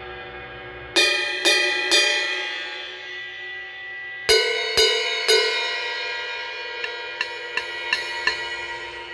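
Vintage Paiste Sound Creation Bright Medium cymbal struck with a drumstick: three hard hits about a second in and three more past the midpoint, each left to ring with a long bright shimmer, then a quicker run of lighter strokes near the end.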